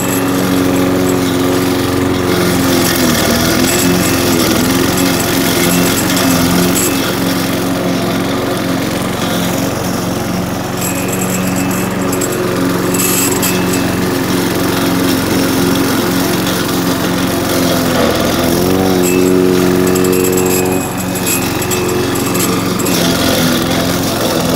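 Brute walk-behind lawn mower's small single-cylinder engine running steadily while cutting tall grass. Its pitch sags briefly a few seconds in and again about three-quarters of the way through as the engine takes the load of the grass, then recovers.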